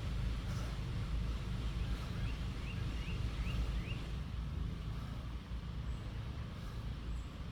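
Steady low outdoor rumble, with a bird giving about five short rising chirps two to four seconds in.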